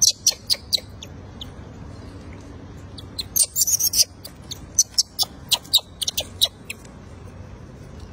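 Infant rhesus macaque crying: short, high-pitched squeaks and shrieks in quick runs, falling quieter near the end.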